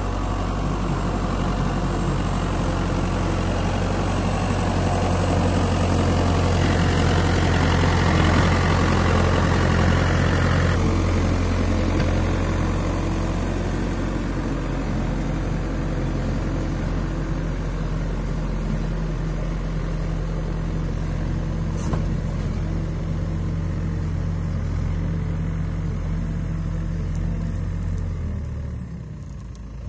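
Escorts backhoe loader's diesel engine running steadily as the machine pushes and levels soil with its front loader bucket. It runs louder for a few seconds about a quarter of the way in, then settles back, and it drops away near the end.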